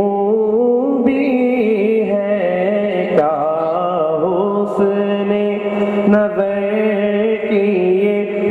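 A man chanting a devotional melody over a steady, held low drone.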